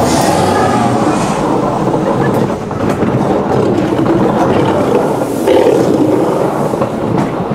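Ghost-train car rumbling along its track in a dark ride, with a loud roaring monster sound effect from the ride's scenery over it.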